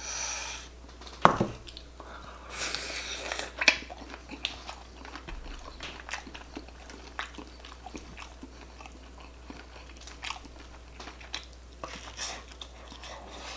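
A person eating close to the microphone: chewing and biting with many small wet clicks and occasional crunches, a couple of them sharper about a second in and near four seconds in.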